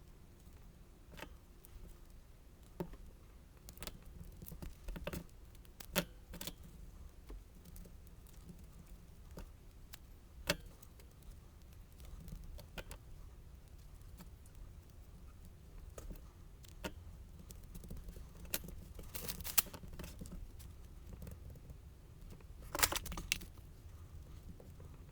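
Scattered small taps, clicks and light rattles of papercraft work at a desk: tools and embellishments being picked up and set down, paper handled. Two short flurries of sharper clacks come in the second half.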